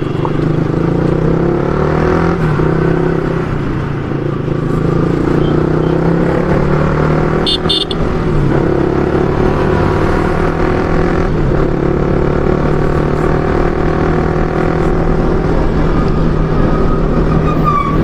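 Motorcycle engine pulling uphill on a steep mountain climb, its pitch rising and falling with the throttle. A short high beeping sound comes about eight seconds in.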